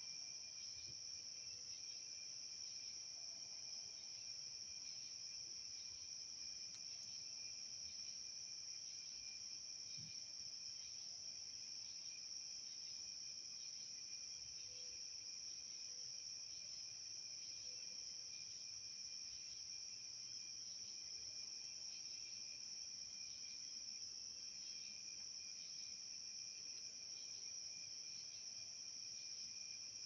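A chorus of night insects, crickets, trilling without a break in one steady high-pitched drone. A second, lower trill beneath it pulses faintly and evenly.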